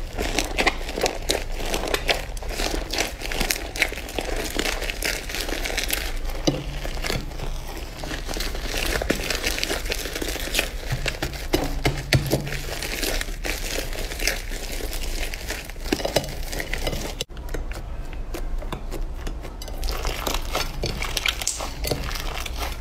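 Purple slime being kneaded and squished by hand, a dense run of small clicks and pops as the mass is folded and pressed. The sound breaks off briefly about three-quarters of the way through, where a new clip of the slime being pressed begins.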